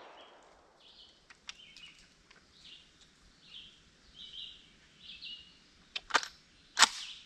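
A small bird chirping, short calls repeated about once a second over outdoor background noise, with the echo of a rifle shot fading out at the very start. Near the end come two sharp clacks.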